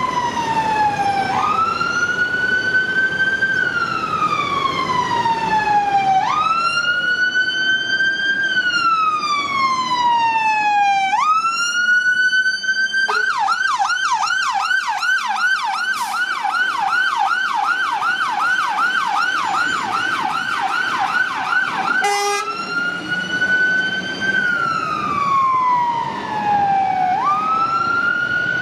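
Fire engine's siren on an emergency run, sounding a slow rising and falling wail. About 13 seconds in it switches to a fast yelp for about nine seconds, then goes back to the wail, with the truck's engine faintly underneath.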